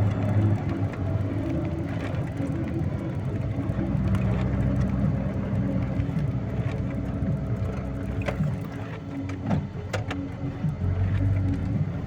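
A vehicle engine running steadily under load, dropping slightly from about two-thirds of the way in and picking up again near the end, with a few sharp knocks or rattles in between.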